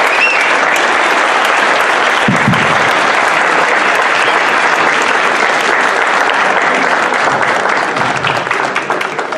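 An audience in a hall clapping steadily, dying down near the end.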